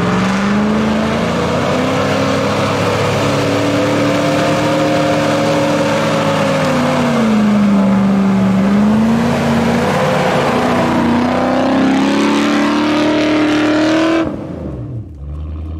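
Land Rover Discovery's V8 engine, with a tuned camshaft, revving hard while the truck drives through deep mud ruts. The revs climb about half a second in, sag and recover around the middle, climb again, then the engine sound falls away abruptly near the end.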